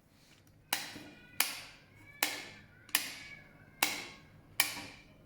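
A switch clicked on and off over and over, six sharp clicks about three-quarters of a second apart, each with a short ringing tail.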